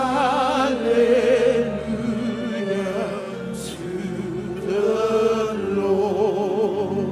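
Worship singing with music: voices holding long notes with wide vibrato, rising and falling in slow phrases.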